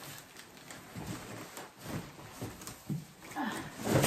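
Cardboard box being pulled off a plastic-wrapped item: scattered scraping and rustling of cardboard and plastic, with a louder knock near the end.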